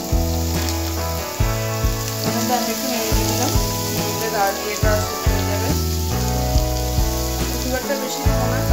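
Background music with a bass line and a melody of held notes, over the sizzle of vegetables frying in oil and ghee in a wok.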